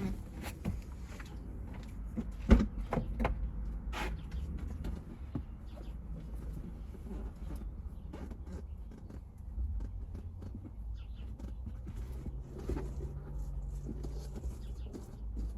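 Scattered light clicks and knocks of hands rummaging around the car's centre console for a dropped screw, with a sharper knock a few seconds in, over a low rumble.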